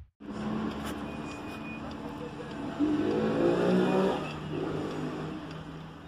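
A motor vehicle's engine running, rising in pitch and louder for about a second around three seconds in. Under it is the faint ticking of wind-up mechanical alarm clocks.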